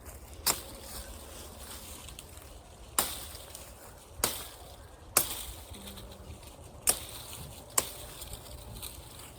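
Machete chopping branches off a felled tree: six sharp strikes at irregular intervals.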